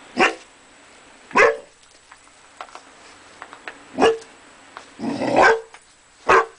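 Curly Coated Retriever puppy barking five times, the barks a second or more apart and the fourth a little longer, wary barks at its own reflection in a glass door.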